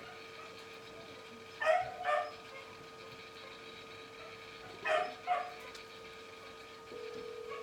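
Miniature schnauzer puppy giving short high yipping barks in two pairs, about a second and a half in and again about five seconds in, over a faint steady hum.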